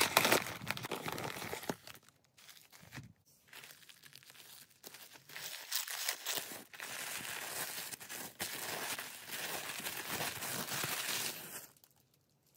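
Paper handling: a kraft paper mailer being pulled open, loudest in the first two seconds, then rustling and crinkling of white tissue paper as its sticker seal is lifted and the wrap unfolded. The paper sounds stop about a second before the end.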